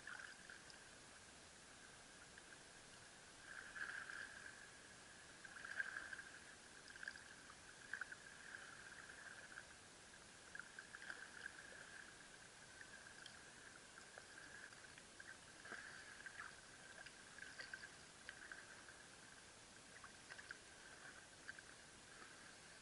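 Faint, muffled water lapping and sloshing against a waterproof camera housing at the sea surface, in irregular soft bursts.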